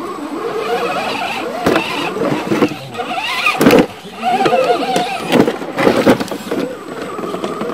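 Electric motor and gear whine of a scale RC rock crawler, rising and falling in pitch with the throttle as it climbs rock, with a few sharp knocks as the truck strikes the rock.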